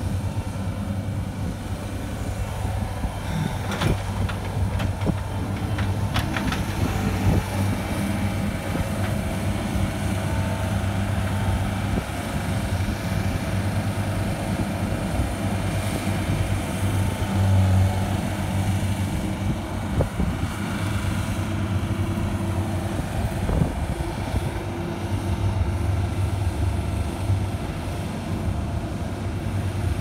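Skid steer loader's engine running without a break, its pitch and loudness rising and falling a little as the machine is driven and worked. A few sharp knocks come about four to seven seconds in.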